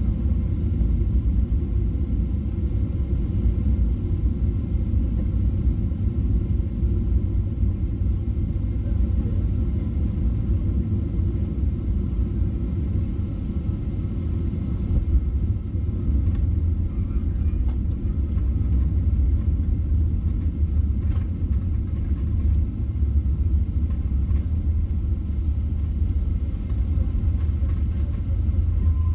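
Cabin noise of a Boeing 777-300ER landing: a steady low rumble of engines and rushing air through final approach and onto the runway. A few faint knocks come in the second half.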